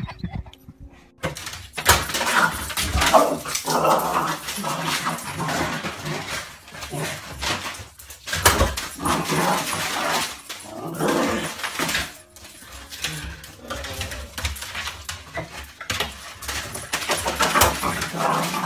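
Dogs growling in rough play, a loud, rough growling that starts about a second in and comes in irregular bouts with brief pauses.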